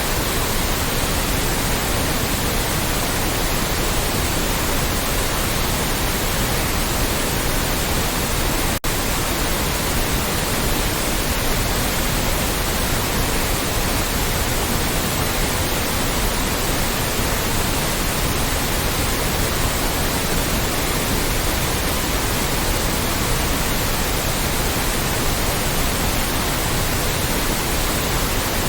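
Loud, steady white noise, an even hiss across all pitches, with a momentary dropout about nine seconds in.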